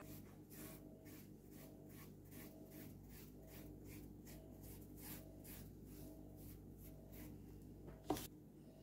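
Faint, quick rhythmic brushing strokes, about three a second, as a small brush works dye along the stitched edge of a leather knife sheath, then one sharp knock about eight seconds in.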